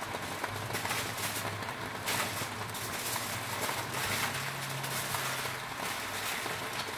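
Foil-wrapped tilapia sizzling and crackling over a gas burner, with aluminium foil crinkling now and then as another parcel is wrapped, over a steady low hum.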